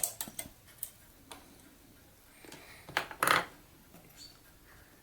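Small metal parts of a door lock unit clicking as the mechanism is taken apart and its little spring lifted out: light ticks in the first second or so, then a louder pair of clacks about three seconds in.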